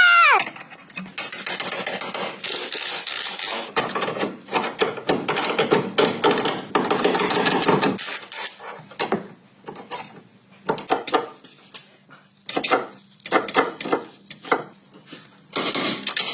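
Rasping, scraping sounds of hand-tool work on the car. The scraping runs steadily for the first several seconds, then breaks into irregular short strokes and knocks.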